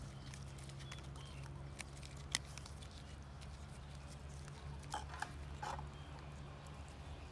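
A few sharp knocks and clicks, the loudest about two seconds in and a small cluster near five seconds, over a steady low hum.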